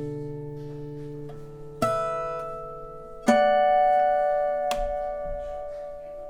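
Elitaro E 4010 PI acoustic guitar, a linden-bodied auditorium cutaway, played with plucked chords. Fresh chords are struck about two seconds in, more strongly at about three seconds, and once more near five seconds, and each is left to ring and fade.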